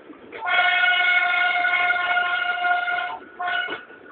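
Narrow-gauge heritage train on the Šargan Eight line sounding its signal: one long steady blast of nearly three seconds, then a short blast.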